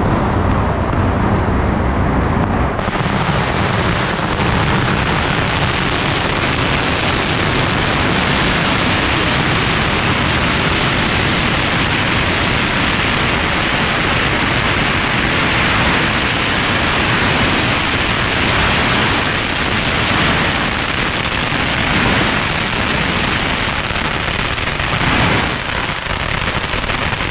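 Firecrackers going off without a break in a dense, rapid crackle of bangs, heavier and deeper in the first few seconds.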